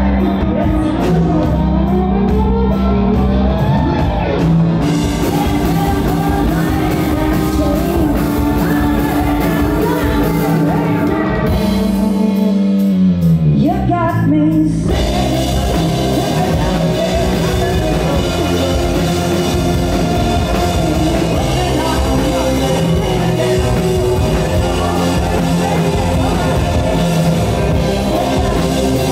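Live rock band playing keyboard, electric guitar and drums while a woman sings. About halfway through, a long falling glide in pitch leads into a brief gap, and then the full band comes back in.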